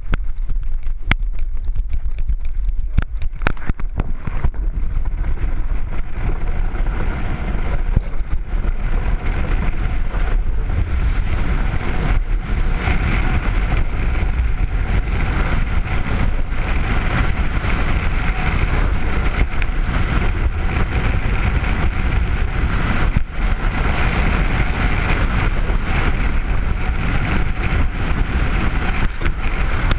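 Skeleton sled's steel runners sliding at speed down an ice track: a continuous loud rumble and hiss of runners on ice, with wind over the microphone. Sharp knocks in the first few seconds, then a steady run whose hiss grows stronger from about twelve seconds on.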